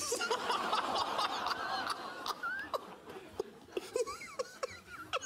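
Studio audience laughing: a loud wave of laughter that starts at once, thins out over about three seconds, and leaves a few scattered individual laughs.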